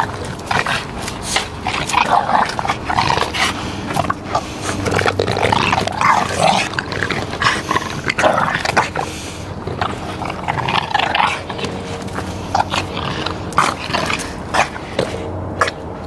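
Dogs growling in play while tugging at a soft ball between them, with many short scuffling clicks from mouths and paws.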